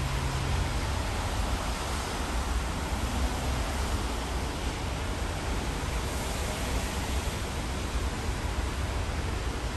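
Steady rushing background noise with a deep rumble underneath and no distinct events, the kind heard at a rapid-transit station. A low hum stops about a second in.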